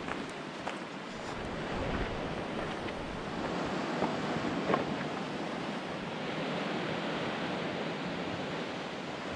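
Steady rushing of the fast-flowing Yellowstone River, swelling a little over the first couple of seconds and then holding, with a few faint ticks.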